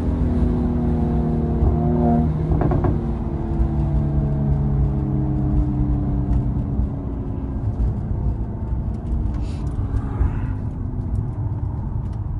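Mercedes-AMG C43's engine and exhaust while driving: the engine note holds, changes pitch about two seconds in, then falls slowly as the car slows, over a steady low rumble.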